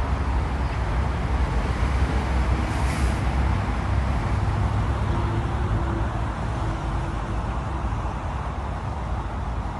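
Vehicle on the move: a steady low rumble of road and tyre noise, with a short hiss about three seconds in.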